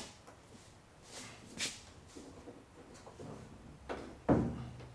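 A few scattered knocks and scraping clunks of parts being worked by hand, with the loudest, heavier clunk about four seconds in.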